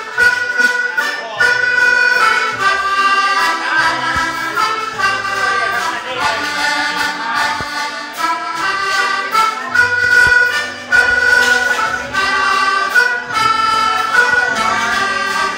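A waltz played live on a keyboard with an accordion-like voice: a sustained melody moving from note to note over a steady bass line.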